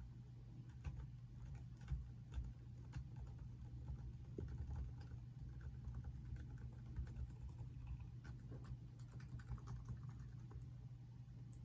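Keys of a modified Topre Realforce keyboard being pressed one after another, its Topre rubber-dome switches giving soft, irregular keystrokes over a low steady hum.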